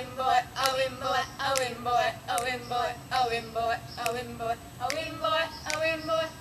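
Singing voices in a song, held notes broken into syllables at an even rhythm.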